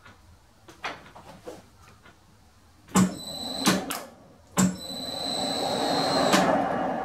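Hi-Power lathe: a few light clicks, then three sharp metal clunks as the gearbox levers on the headstock are shifted to a finer feed. A high steady whine sounds between the clunks and stops near the end, over a rising running noise as the lathe turns the large workpiece on its faceplate.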